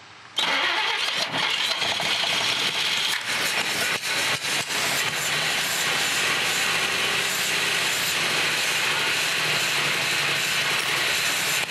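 1948 Chevrolet Fleetmaster's straight-six catching on its first start with the choke held by hand at the carburettor. It bursts into running about half a second in, runs unevenly for the first few seconds, then runs steadily and loud.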